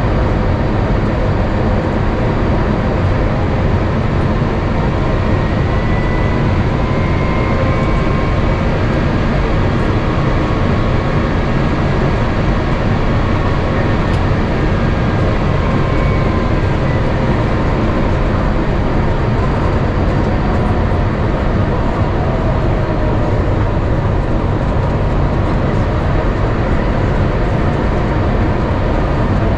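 Cabin noise inside an Airbus A350-900 on approach: the steady rumble of its Rolls-Royce Trent XWB engines and the rush of air over the fuselage, with faint engine tones slowly sliding in pitch.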